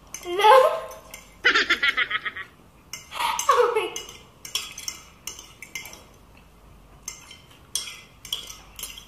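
A shouted "No!" and another voice cry in the first four seconds, then eating utensils clicking and clinking against dishes in a run of short, sharp taps.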